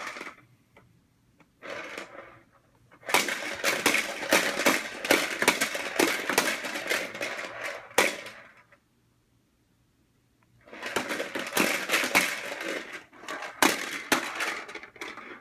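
Corn popper push toy rolled along the floor, its plastic balls popping and clattering against the clear dome in a rapid stream of clicks. It runs in two long stretches and stops for about two seconds a little past halfway, with a short burst of clatter near the start.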